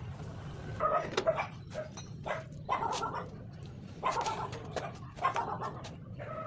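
A dog barking, about five short barks spread across a few seconds over a steady low background hum.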